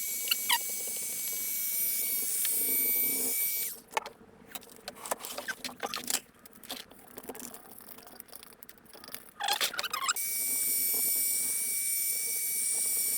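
Electric heat gun running with a steady high whine and rush of air, switched off a few seconds in and back on near the end, warming vinyl wrap. In between, scattered rubbing, scraping and clicking as the vinyl is pressed and smoothed by hand.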